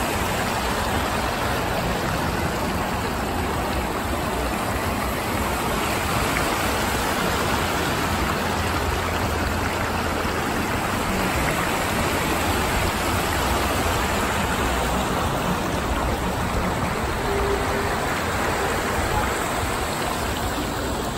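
Steady rush of water from the Rain Oculus, a large acrylic whirlpool fountain, as water swirls around the bowl and pours down through the hole at its centre.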